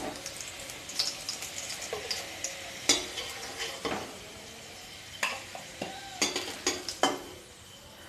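Hot oil sizzling around fried potato halves as a perforated metal slotted spoon scrapes the kadai and lifts them out, with several sharp clinks and knocks of the spoon against the kadai and a steel bowl. The sizzling dies down about halfway through as the pan empties.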